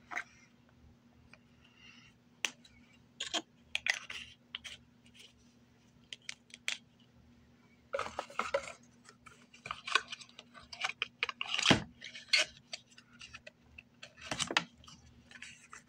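Small plastic cosmetic container and its cardboard packaging being handled on a desk: irregular clicks, taps and rustles, busier in the second half, with a sharper knock about twelve seconds in. A faint steady hum lies underneath.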